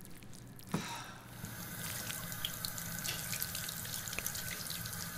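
Bathroom sink faucet running, with hands being washed under the stream and small splashes in the basin. A short click comes about a second in, before the water sound settles in.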